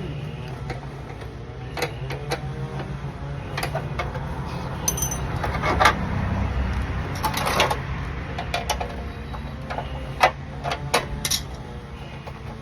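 Hand tools clinking and knocking against the metal of a small air conditioner as its compressor is worked loose: scattered sharp clicks and clanks over a steady low hum.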